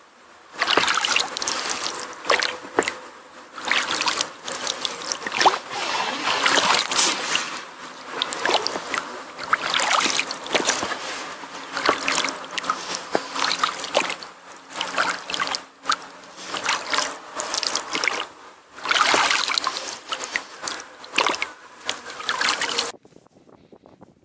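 Oar strokes splashing and choppy water slapping against the hull of an inflatable PVC boat being rowed, in irregular surges of splashing. The sound cuts off just before the end.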